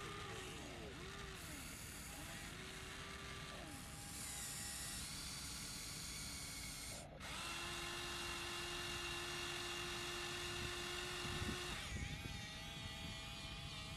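Electric gear motors of a Huina 1593 RC excavator whining as the boom, arm and tracks move, the pitch rising and falling with each control input. A little past halfway it holds one steady whine for about four seconds.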